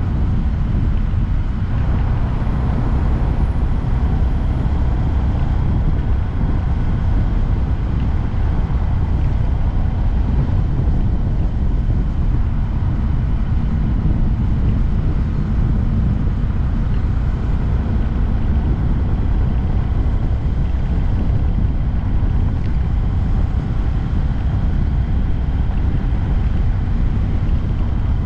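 Riding sound of a 2022 Honda Grom, its 125 cc single-cylinder engine running at a steady pace under a heavy, even rush of wind on the camera microphone.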